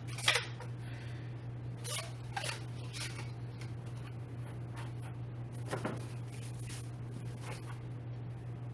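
Scattered clicks and rustles of gaming-chair parts and packaging being handled, the sharpest click just after the start, over a steady low hum.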